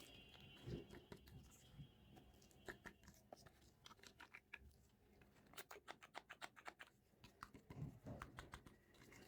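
Faint light clicks and taps of small plastic toy pieces being handled, with a quick run of clicks about six seconds in. A faint high steady tone stops about three seconds in.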